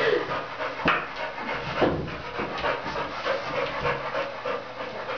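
A Staffordshire terrier panting heavily in a steady run of noisy breaths, out of breath from hard play.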